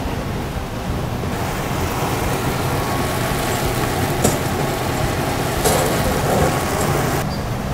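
Steady low rumble with a hiss that sets in about a second in and cuts off near the end, and two short clicks in the middle.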